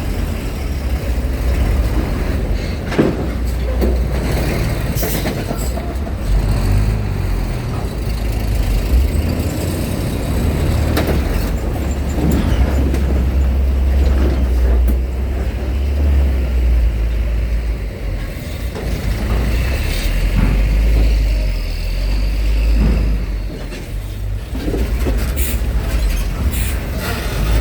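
Heavy trucks and cars driving aboard a ferry: deep, steady diesel engine noise, with scattered knocks and clanks over it.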